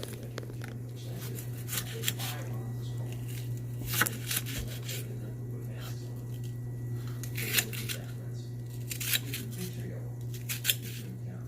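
Kitchen knife chopping stacked onion slices on a cutting board: scattered, irregularly spaced sharp knocks of the blade, over a steady low hum.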